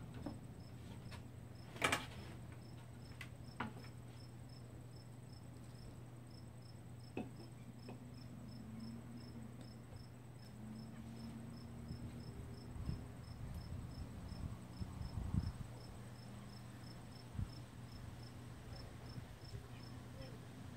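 A cricket chirping steadily, about three chirps a second, over a steady low hum, with a few sharp clicks, the loudest about two seconds in.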